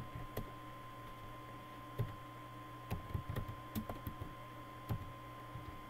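Keystrokes on a computer keyboard, a name being typed letter by letter in irregular clicks, over a steady electrical hum.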